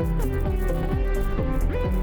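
Background music with a steady beat and sliding notes.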